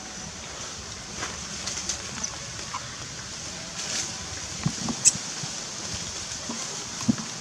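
Steady outdoor hiss of wind on the microphone, with scattered light clicks and rustles and a brief high squeak about five seconds in.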